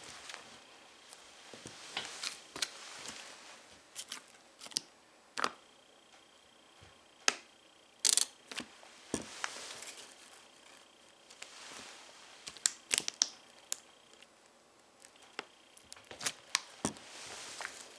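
Plastic yogurt cup crackling and snapping as a boot sole slowly presses down and crushes it, in a run of irregular sharp cracks with the loudest about eight seconds in.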